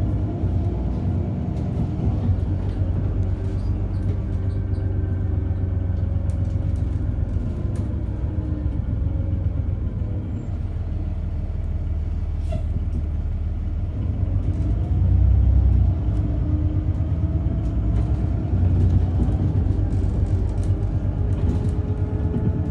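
Steady low rumble of a moving road vehicle, with faint whining tones that slowly rise and fall in pitch.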